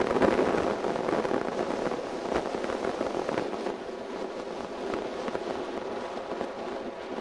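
Offshore race boat's engine running flat out at a distance, a crackling drone that gradually fades.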